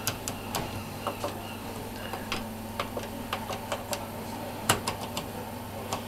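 Rotary selector knobs on an Indesit IWC71252 washing machine being turned by hand, their detents clicking irregularly, with one louder click a little past the middle. A faint steady low hum runs underneath.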